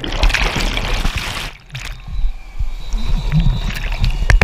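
Churning, bubbling whitewater heard with the camera plunged underwater as the paddleboarder is thrown off the board in a river rapid. The noise drops briefly about a second and a half in, then turns to rougher splashing as he surfaces and grabs the board, with a loud splash just before the end.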